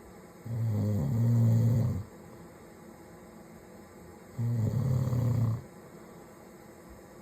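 A man snoring: two loud snores with a low, rattling buzz, each lasting a second or so, about four seconds apart, with quiet breathing between them.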